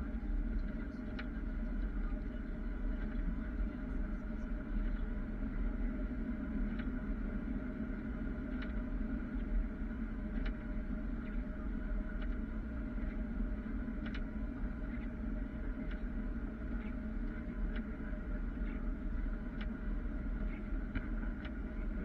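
Steady low rumble and drone of a snowplow truck heard from inside its cab as it plows deep snow, with faint scattered ticks.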